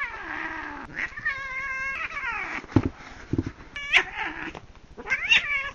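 Cat yowling in a string of drawn-out, wavering calls that rise and fall in pitch, the sound of a cat in a scuffle, with a couple of soft thumps between the calls.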